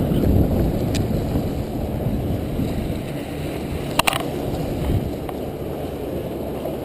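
Wind buffeting the microphone over surf washing against jetty rocks, a steady rumbling noise. A single sharp click about four seconds in.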